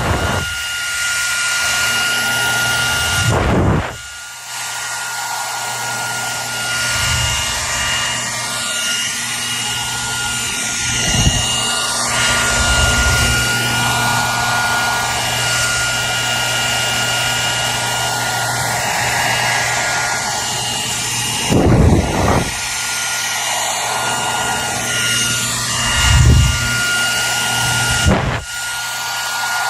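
Hair dryer running steadily: a rush of air with a constant high whine over it. A few short low thumps come through, and the level dips briefly about four seconds in.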